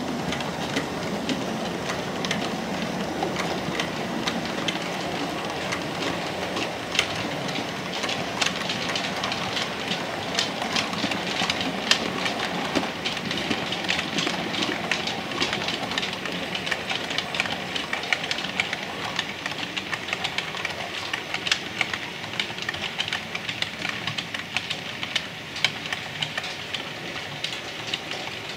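Model railway train running along the track, a steady running noise with many sharp clicks of the wheels over rail joints and points.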